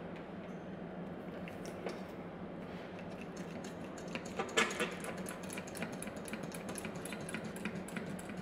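Pistol-grip hand fluid pump being squeezed to draw up and pump gear oil, its trigger mechanism clicking in a quick run from about halfway, with some liquid sound.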